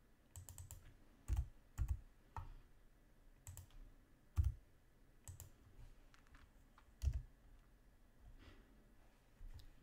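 Computer keyboard keys and mouse buttons clicking irregularly: a dozen or so short clicks, some with a soft thump and some in quick pairs.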